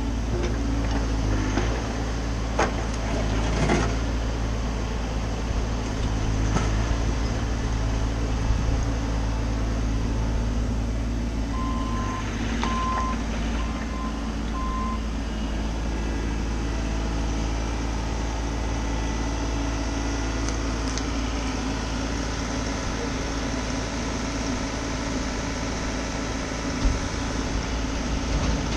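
Bobcat mini-excavator's diesel engine running steadily under work, with a few sharp knocks in the first several seconds. A short series of about four beeps sounds near the middle.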